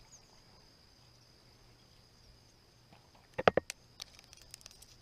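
Handling noise as a freshly caught bass is unhooked: a quick burst of loud clicks and knocks about three and a half seconds in, then scattered lighter clicks. A faint steady high whine sits underneath.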